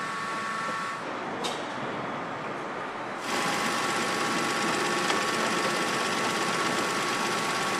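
BMW motorcycle engine turning on a production-line test bench, driven through coupled shafts: a steady mechanical whir with a few high whining tones. It gets louder and fuller about three seconds in.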